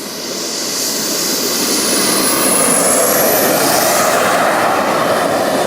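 Twin JetCat P80 model jet turbines on a radio-controlled Airbus A330, a rushing jet noise that swells over the first two seconds as the model comes closer and then holds loud. A thin high turbine whine slides in pitch through the middle as it passes.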